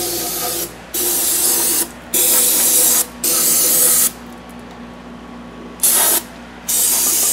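Aerosol can of brake cleaner spraying onto an oil-soaked intake manifold to flush the oil out. It sprays in bursts of about a second each, with a pause of nearly two seconds midway and a shorter burst just before the last one.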